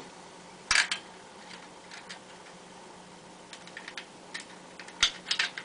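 Small metal clicks and clacks of a TOZ-99 .22 rifle's action being put back together by hand, as the compressed striker spring is fitted back in: a sharp click under a second in, a few light ticks, then a quick cluster of clicks near the end.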